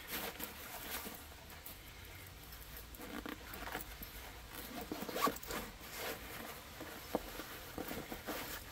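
Zipper on a military rucksack's removable side pouch being worked in short, uneven pulls, with handling of the pack's fabric.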